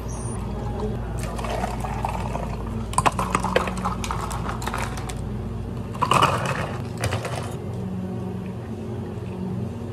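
Cafe equipment running with a steady low hum that stops about six seconds in, with clinks and rattles of drink preparation around three seconds and again near six seconds.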